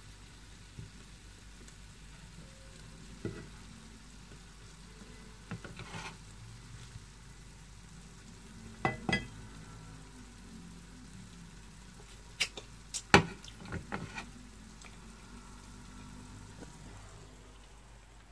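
Stir-fried turkey and vegetables sizzling faintly in a frying pan while a spatula scoops them out onto a plate. Scattered sharp clinks and scrapes of the utensil against the pan and plate break the sizzle, with a cluster about 12 to 14 seconds in and the loudest clink about 13 seconds in.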